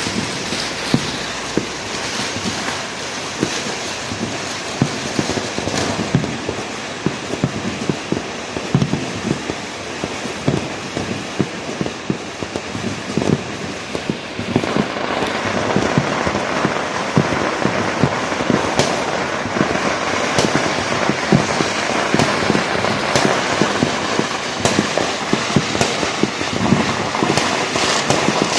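Fireworks going off in a dense, continuous crackle of many small, rapid bangs, growing louder about halfway through.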